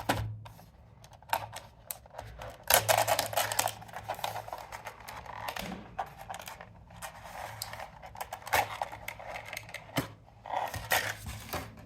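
Small plastic mechanical keyboard switches clicking and rattling as they are handled, in irregular clicks with two denser flurries about three seconds and eleven seconds in.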